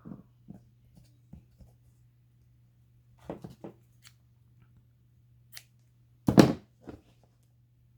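Paper and craft embellishments being handled on a table: scattered light rustles and taps, with a cluster about three seconds in and one much louder burst of handling noise a little after six seconds.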